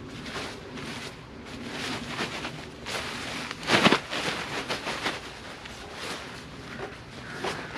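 Irregular rustling and crunching from movement and handling, with one louder crunch about four seconds in.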